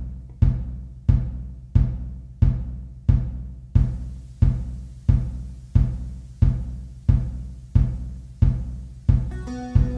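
Background music: a steady, slow beat of heavy low drum hits, about three every two seconds, over a sustained bass, with keyboard chords coming in near the end.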